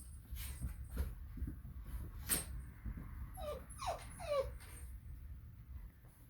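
Bullmastiff puppy giving three short cries in quick succession, each falling in pitch, about halfway through, with a few scattered knocks before them.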